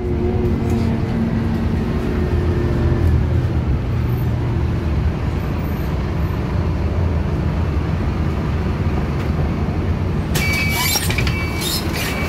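Transjakarta city bus's engine and road rumble, heard from the bus and its doorway as it pulls in and stands at the stop. Near the end come a few sharp clicks and a short high beeping tone.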